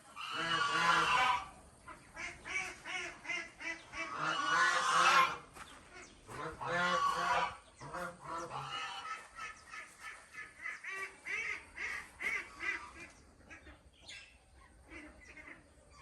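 Ducks in a flock quacking, many short calls overlapping, with three louder bouts of massed quacking: near the start, around the middle and shortly after.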